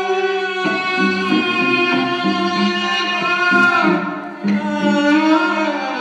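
Live music with a violin carrying the melody over sustained low notes, with a sliding, swelling phrase about halfway through.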